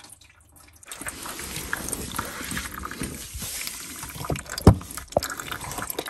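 Water trickling and dripping from a freshly cut copper pipe into a plastic tray, starting about a second in. Two sharp knocks stand out, the louder one a little past halfway.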